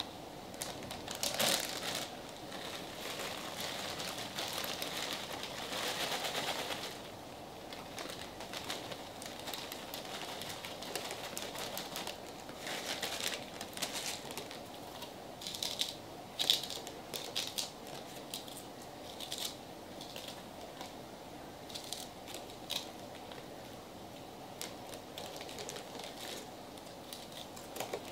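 Plastic snack packaging handled close by: a potato-chip bag and a clear plastic wrapper crinkling and rustling, with scattered sharp clicks. The rustling is densest in the first few seconds, and the clicks are sparser later on, where a spoon is at work in a plastic cup.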